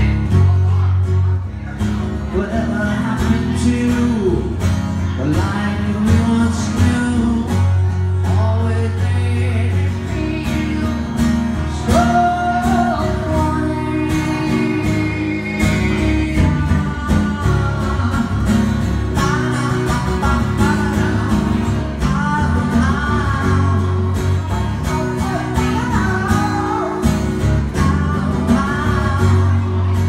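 Live solo performance: a strummed twelve-string acoustic guitar keeping a steady rhythm with heavy bass notes, and a singer's voice over it, more prominent in the second half.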